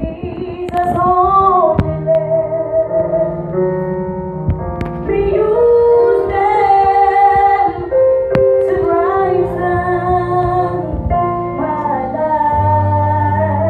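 Female voices singing a church song with instrumental accompaniment, held low bass notes under the melody.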